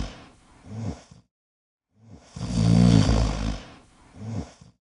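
Loud snoring, twice: each time a long, rough breath followed by a shorter, softer one, about two and a half seconds apart. It is the sound of dozing off from boredom mid-sentence.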